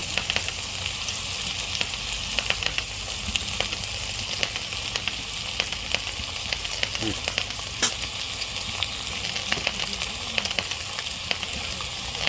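Food frying on a hot pan: a steady sizzle of hot fat with frequent sharp crackles and pops, one louder pop about eight seconds in.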